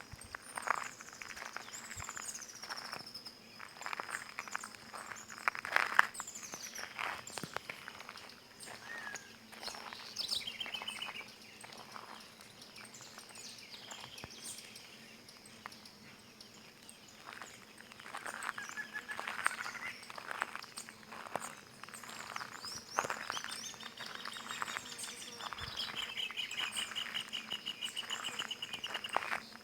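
Wild birds singing, with falling whistled notes and a long, fast trill near the end. Footsteps crunch over stony ground, mostly in the first third.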